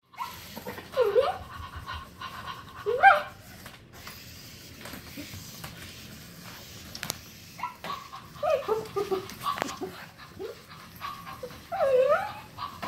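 Short dog-like yips and whines with a pitch that slides up and down, about four times, with quieter panting and sniffing between them.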